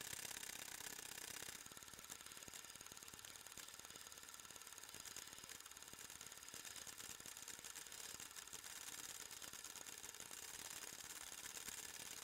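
Faint, fast, even clatter of a cine film mechanism running, with steady hiss. It drops a little in level about a second and a half in.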